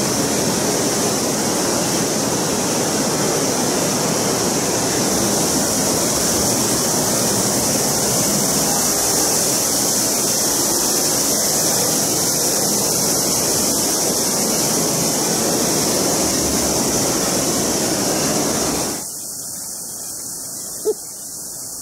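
Loud, steady rush of water from the stream inside a limestone cave. It drops to a quieter hiss about nineteen seconds in.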